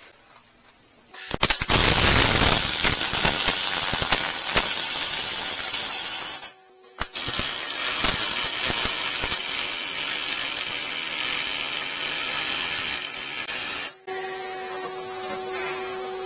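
Electric arc welding on a steel motorcycle rear rack: two welding runs, about five and seven seconds long with a short break between, each a loud, steady crackling hiss. After the second run stops, a quieter steady hum with a clear tone remains.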